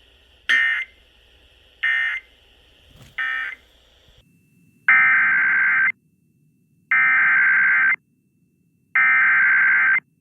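NOAA Weather Radio Emergency Alert System (SAME) digital data bursts. First come three short end-of-message bursts about 1.3 s apart over light radio hiss. After a pause come three one-second header bursts about two seconds apart, which open the next alert.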